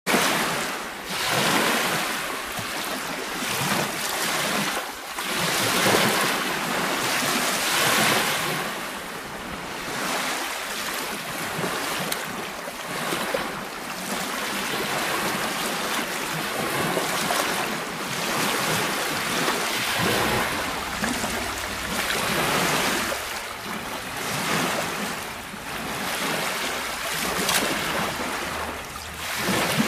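Small waves breaking and washing up a sandy shore, the surf swelling and fading every couple of seconds. Wind buffets the microphone with a low rumble in the last third.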